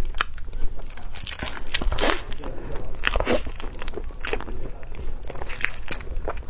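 Close-miked eating: bites and crunchy chewing, irregular sharp crackles and clicks.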